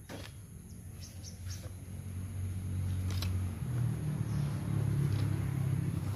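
A motor running low and steady, rising in pitch and getting louder about three and a half seconds in, with a few faint clicks over it.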